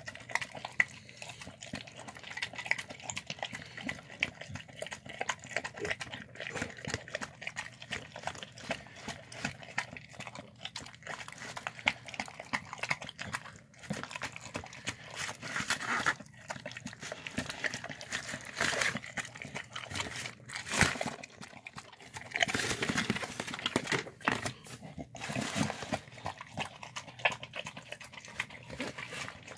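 Dog eating wet, sloppy food from a plastic tub: continuous wet slurping and chewing made of many quick clicks, with louder bursts of slurping about two-thirds of the way through.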